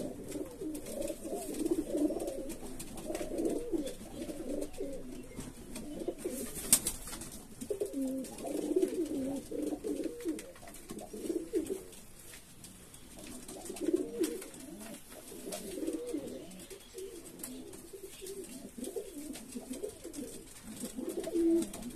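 Domestic pigeons cooing in repeated low bouts in a wooden loft, one bird's calls running into the next. A single sharp click stands out about a third of the way through.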